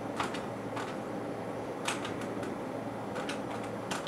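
Calculator keys being tapped: a run of short, irregularly spaced clicks, over a steady low hum.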